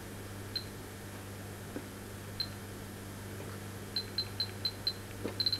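Short, high electronic beeps, a few scattered at first, then about four a second near the end, ending in a quick cluster, over a steady low electrical hum.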